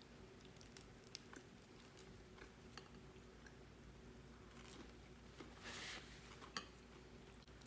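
Faint chewing and mouth sounds of someone eating, with soft scattered clicks and a brief louder crunchy or squishy noise about six seconds in, over a low steady hum.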